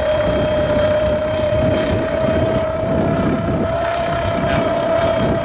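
Drone motors and propellers running steadily under a full payload: a constant high hum over a rough rushing noise.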